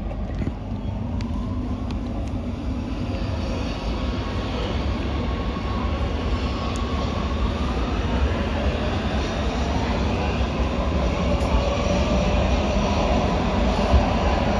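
Oslo MX3000 metro train pulling away from a station, heard from inside the car: a steady low rumble of wheels on rail with a motor whine that rises in pitch as the train speeds up.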